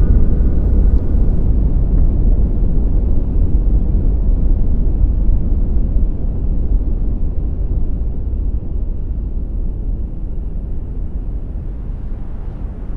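Deep, loud rumbling sound effect with no tone in it, fading slowly and steadily: the sound of the asteroid's impact.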